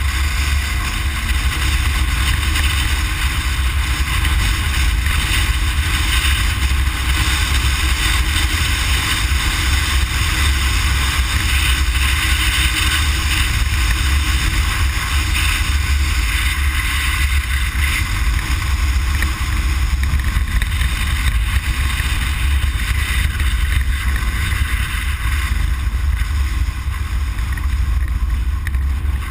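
Cabin noise inside a Ford Explorer off-road prerunner driving hard over dirt: a loud, constant heavy low rumble with a steady hiss over it, never letting up.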